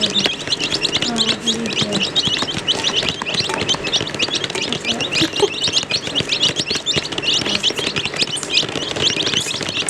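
A group of baby chicks peeping continuously, many short high cheeps overlapping several times a second.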